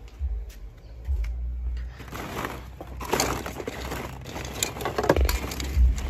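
Rustling and clattering of small handled objects, with low thumps, growing busier about two seconds in.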